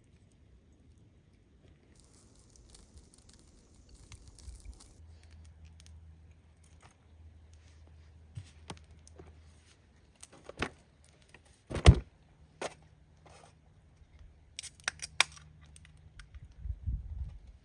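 Camp gear being handled at close range: a soft rustle, then scattered clicks and knocks, the loudest a single sharp knock about twelve seconds in.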